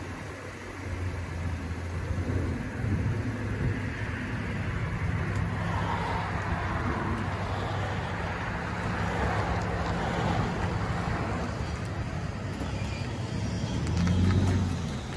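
Lexus IS 350's 3.5-litre V6 running through an aftermarket exhaust with the mufflers removed or replaced, first at idle and then pulling away at low speed. The exhaust note swells louder about a second before the end.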